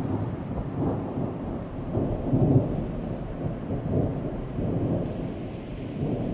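A low rolling rumble over a steady hiss, swelling and easing several times, loudest about two and a half seconds in.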